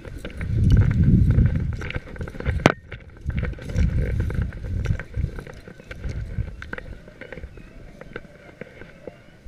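Footsteps swishing through dry grass and old snow, mixed with wind buffeting the microphone, and a single sharp click about two and a half seconds in.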